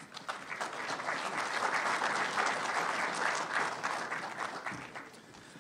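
Audience applauding, building over the first couple of seconds and dying away near the end.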